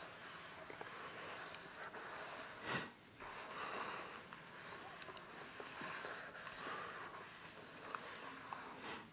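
Soapy sponge and foam being scrubbed and squished around a sink basin: a steady wet, crackly hiss of suds, with one louder squelch about three seconds in.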